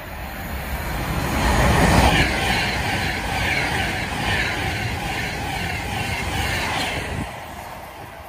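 Avanti West Coast Class 390 Pendolino electric train passing at speed, a rush of wheel-on-rail and air noise. It builds to its loudest about two seconds in and stays loud while the carriages go by. It drops off sharply about seven seconds in as the last coach passes, then fades.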